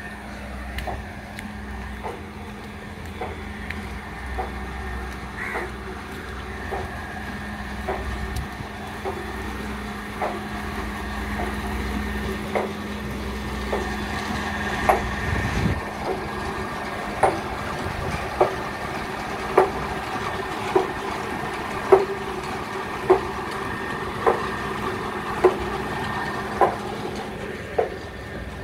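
Footsteps on a concrete path, about one step a second, growing clearer in the second half. Under them for the first half is a steady low hum and rumble, which stops about halfway through.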